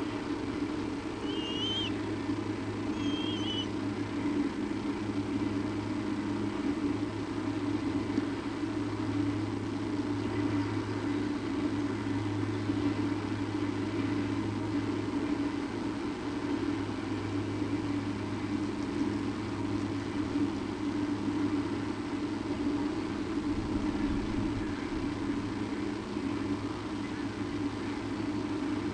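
A steady low hum runs without change, with two short, high bird calls about two and three seconds in.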